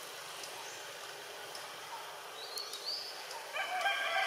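A high, whining animal call starts about three and a half seconds in and holds a fairly steady pitch, over a steady outdoor background hiss. A couple of short, very high chirps come just before it.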